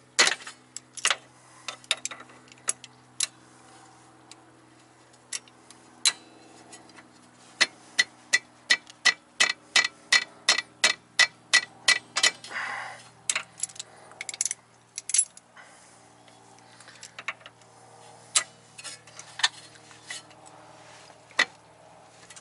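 Sharp metal clicks of a wrench being worked on an inner tie rod held by locking vise grips, scattered at first, then a steady run of about three clicks a second midway. A faint steady hum sits underneath.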